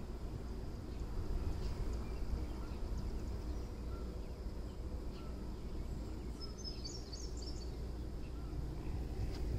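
Outdoor ambience: a steady low rumble with small birds chirping now and then, and a quick run of high chirps about seven seconds in.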